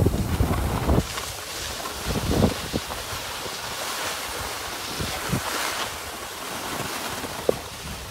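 Skis hissing and scraping over groomed snow, with wind buffeting the microphone, heaviest in the first second and steadier after that, with a few faint knocks.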